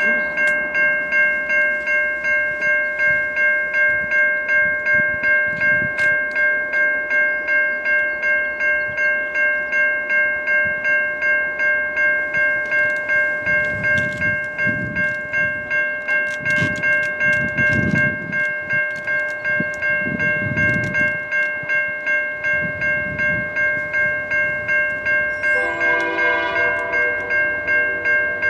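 Railway level-crossing warning bell ringing steadily at a little over two strokes a second while a CN freight train approaches. About two seconds before the end, the lead EMD SD75I locomotive's air horn sounds, with some low rumbling heard in the middle.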